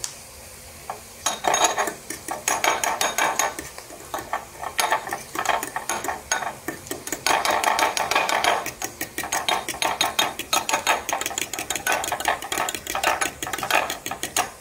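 A fork beating eggs in a small glass bowl: rapid ticking of the tines against the glass, starting about a second in and going on in spells with brief pauses.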